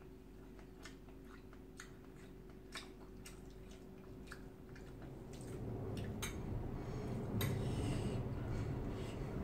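A metal spoon clinks and scrapes against a porcelain rice bowl in scattered light clicks, along with eating sounds. About halfway through, a louder low rumbling noise sets in and continues.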